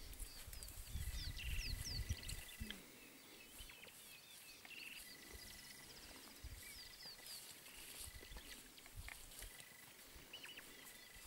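Wild birds chirping and calling in open bush, many short sweeping notes, with a thin steady high whistle that comes and goes. Low rumbling noise in the first two to three seconds.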